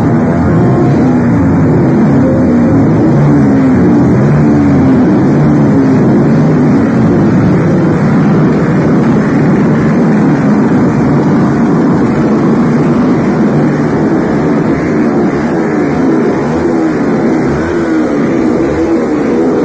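Loud, steady mass of motorcycle engines running and revving together at close range. Several engine pitches rise and fall over one another.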